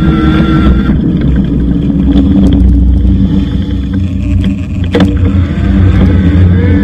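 Riding noise of an e-bike recorded on a bike-mounted action camera: a loud, steady low rumble from wind on the microphone and the tyres rolling. There is one sharp knock about five seconds in, and faint rising whines near the end.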